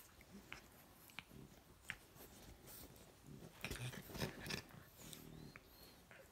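French bulldog puppies play-fighting, mouthing and nipping at each other: scattered soft chomping and clicking mouth sounds, with a busier flurry about four seconds in and a short low grunt just after it.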